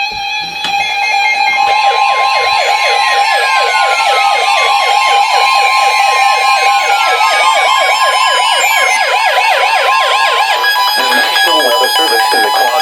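Several weather radio receivers alarming at once as a new warning comes in. A fast, warbling siren-like alert tone runs over a steady single-pitch attention tone and other steady beeps, and it stops about eleven seconds in.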